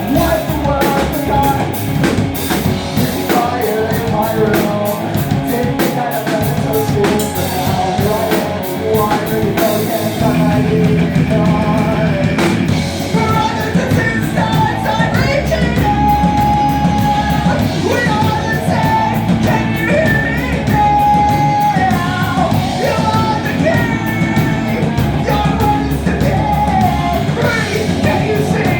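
Live rock band playing a song with drum kit, guitars and sung, partly shouted vocals; the drumming is densest in the first ten seconds.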